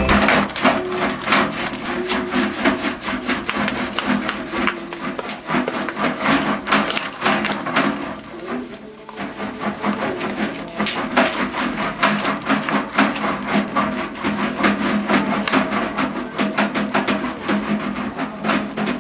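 Rapid, continuous tapping on the brass bell of a Besson helicon during magnetic dent repair, many taps a second over a steady low ringing of the brass. The tapping eases briefly about halfway through.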